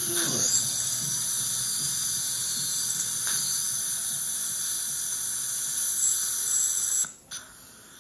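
Dental surgical suction hissing steadily as the suction tip draws fluid from the implant site, cutting out about seven seconds in.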